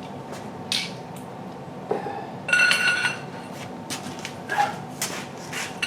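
Metal tools clicking and clinking as a ratchet and socket are worked on a seized suspension bolt, with one ringing metallic clank about two and a half seconds in.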